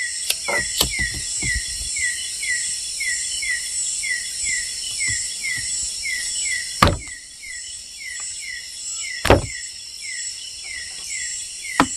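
Night-time forest insect chorus: a steady high shrill with a short falling chirp repeating about twice a second. A few sharp knocks cut through it, the loudest two about seven and nine seconds in.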